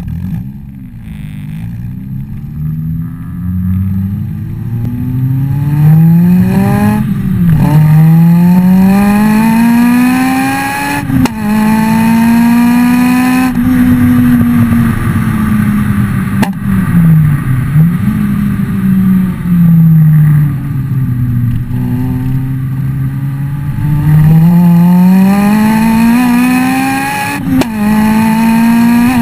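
Honda Civic EP3 Type R's 2.0-litre K20 four-cylinder through a decatted Fujitsubo RM-01A cat-back exhaust, revving hard several times. Each climb in pitch over a few seconds is followed by a sharp drop, and there are a few sharp cracks around the drops.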